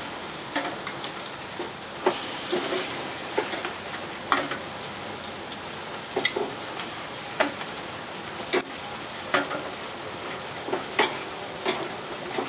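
Barbecue-sauced beef back ribs sizzling steadily as they are laid sauce-side down on a hot gas grill's grate, with sharp clicks of metal tongs against the grate and ribs now and then.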